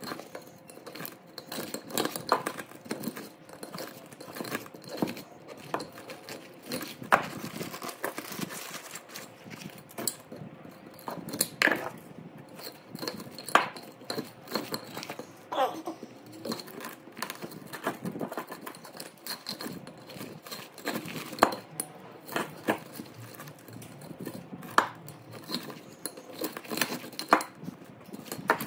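Irregular sharp metallic clicks and clinks, a few of them ringing briefly, as copper winding wire is cut and pulled out of an electric motor's stator with hand tools.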